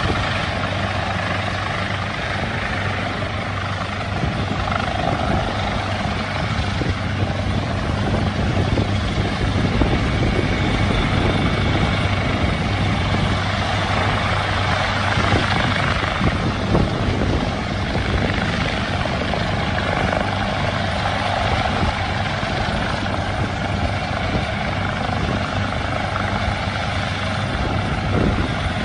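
Helicopter hovering low overhead, its rotor beating steadily over a constant engine hum.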